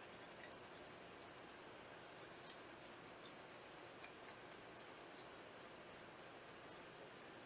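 Soft scrubbing of a paper wipe across a graphics card's circuit board as it is cleaned with isopropyl alcohol. A quick run of short rubbing strokes comes just after the start, then irregular single rubs.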